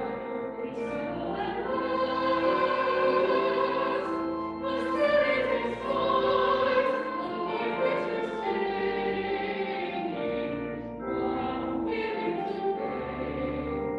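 A small church choir singing a hymn with organ accompaniment: held notes and chords changing every second or so.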